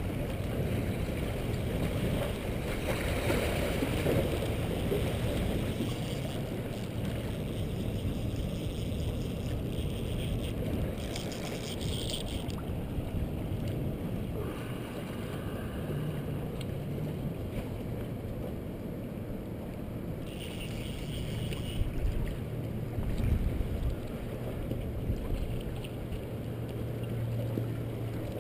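Wind rumbling on the microphone over seawater lapping against jetty rocks, a steady noisy wash, with a faint low hum joining in about halfway through.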